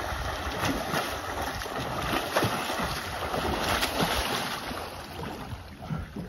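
Two swimmers splashing through open water in butterfly stroke, with a splash at each arm stroke, easing off near the end as they reach the dock. Wind rumbles on the microphone underneath.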